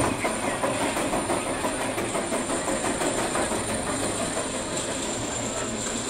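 The Big One's steel roller coaster train climbing its chain lift hill, the lift chain and anti-rollback ratchet clicking in a fast, steady clatter.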